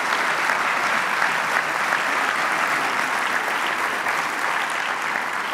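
Large indoor audience applauding steadily, easing off slightly near the end.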